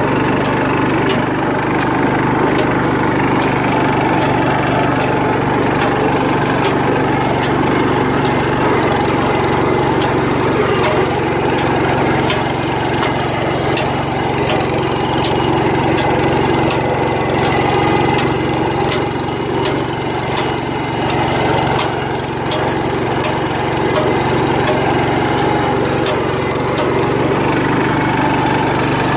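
1974 John Deere 140 garden tractor's single-cylinder Kohler engine running steadily as the tractor drives with its front blade mounted. Faint, regular light ticks recur through it.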